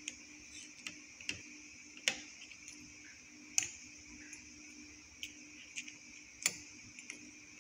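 Metal spoon clinking against a ceramic soup bowl as it scoops through broth: about nine sharp, irregular clinks, the loudest about two seconds in, about three and a half seconds in, and near the end.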